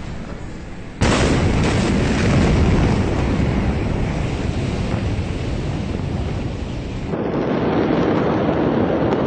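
A huge explosion: a sudden loud blast about a second in, then several seconds of continuous rumbling noise, heavy in the low end. This is the 2020 Beirut port blast of stored ammonium nitrate, heard through a phone microphone. The noise changes abruptly near the end, as if cut to another recording of the same rumble.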